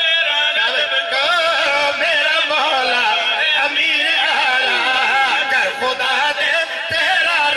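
Several men singing a devotional chant together into a microphone, their amplified voices overlapping in a continuous, wavering melody.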